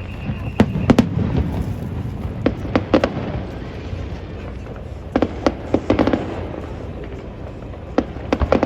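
Aerial fireworks bursting: clusters of sharp cracks and bangs, several close together, over a steady low rumble.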